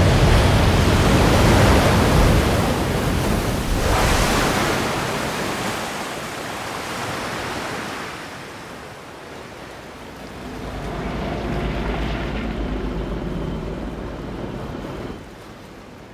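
A huge wave crashing and surging ashore, a heavy rush of water loudest in the first four seconds. It ebbs away, then swells again about ten seconds in before dropping off near the end.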